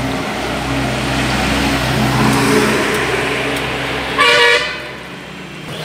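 Oil sizzling as battered potato chops deep-fry in a large wok, over a steady hum of street traffic. A vehicle horn gives one short, loud toot about four seconds in.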